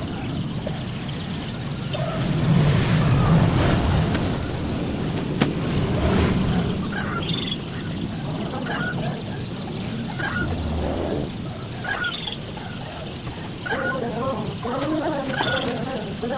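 Poultry calling in short repeated notes, busier near the end, over a steady outdoor rumble, with a sharp knock about five seconds in.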